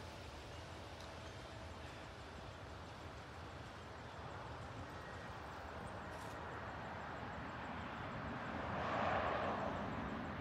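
Low, steady rumble of a Boeing 747-400 freighter, a four-engine jet airliner, passing high overhead at cruising altitude. About nine seconds in, a louder rushing noise swells and fades over a couple of seconds.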